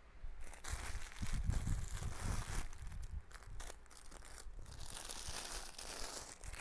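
Plastic bags holding clothes crinkling and rustling as they are handled and shifted, with dull bumps between about one and two and a half seconds in.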